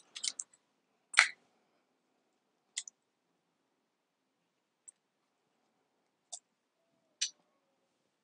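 A handful of light, sharp clicks and taps spaced irregularly, the loudest about a second in, from hands working modelling clay over a plastic tray and digital scales while splitting a portion in half.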